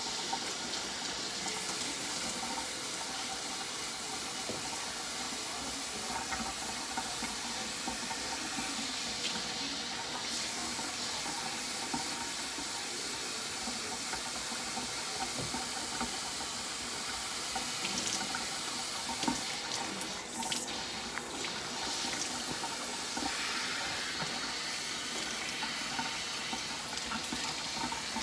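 Tap water running steadily while a dog's coat is rinsed of conditioner, with a few brief knocks about two-thirds of the way through.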